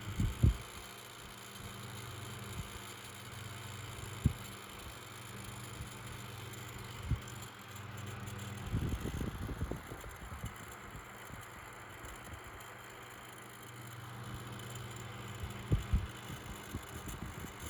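Dayton 6-inch clip-on table fan running on high speed: a steady motor hum with a soft rush of air. A few low knocks and bumps come through it, a cluster of them about nine seconds in.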